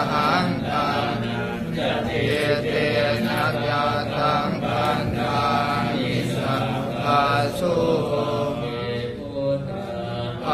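Buddhist devotional chanting, voices reciting a steady chant.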